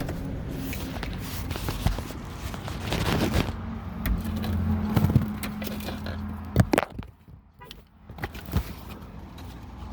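Car engine idling, then switched off about seven seconds in, with a couple of sharp knocks around the shut-off.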